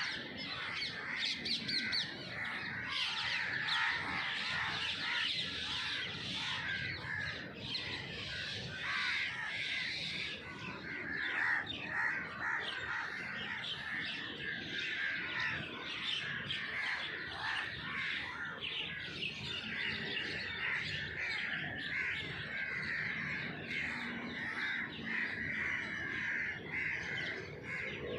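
A flock of birds chirping and calling together: a dense, continuous chorus of many overlapping calls with no pause.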